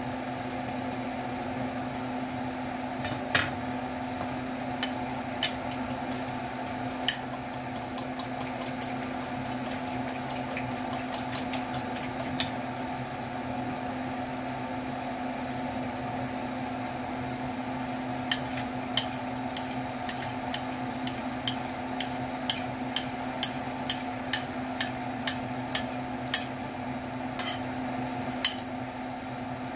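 A metal fork clicking against a ceramic bowl while beating eggs: a few scattered taps, then a quick run of clinks, then steady tapping about twice a second. A steady mechanical hum underneath.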